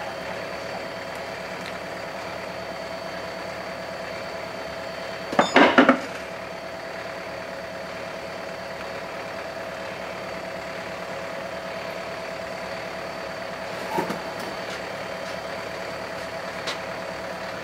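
A lorry's diesel engine idling steadily. A loud metallic clatter comes about five and a half seconds in, and a lighter knock near 14 seconds.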